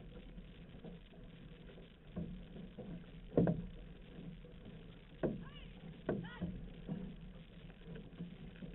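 Outrigger canoe paddles dipping and pulling through the water in a steady rhythm, roughly one stroke a second, over a constant rush of water along the hull. The loudest stroke comes about a third of the way in.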